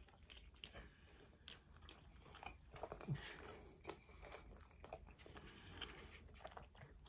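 Faint chewing of a mouthful of mac and cheese, with scattered small clicks and crunches.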